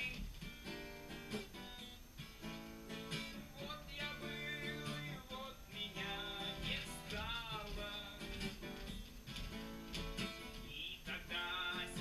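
Acoustic guitar being strummed and played quietly, chords changing every second or so, heard from across a room.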